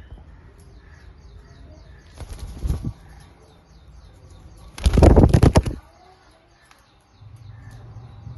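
A parrot flapping its wings in two flurries of rapid beats, a short one about two seconds in and a louder, longer one about five seconds in. Faint, quick high chirps repeat in the background.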